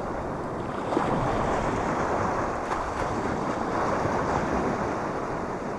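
Sea waves washing at the water's edge and wind on the microphone: a steady rushing noise that gets a little louder about a second in.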